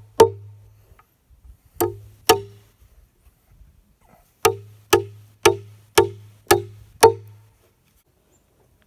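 Hammer driving nails into a frame of 2x6 lumber. There are nine blows, each ringing briefly: a single, then a pair, then a run of six at about two a second.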